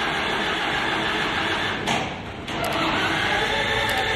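Massey Ferguson tractor's diesel engine running steadily after its rebuild, with a brief dip in level about two seconds in.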